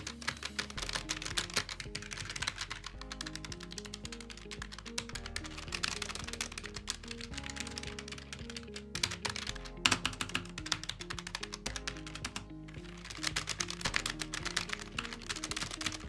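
Continuous fast typing on the Logitech G915 keyboard's low-profile GL Linear mechanical switches, miked close up: a dense run of key clacks with a couple of brief pauses. Background music plays underneath.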